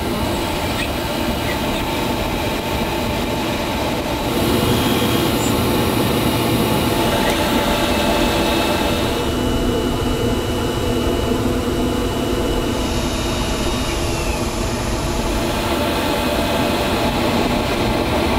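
Tornos Swiss Nano Swiss-type CNC lathe running a cycle on tiny 316 stainless steel screws: a steady mechanical hum and hiss of spindles and coolant spray. It gets louder about four seconds in, and a high whine comes in around halfway, then falls away and stops.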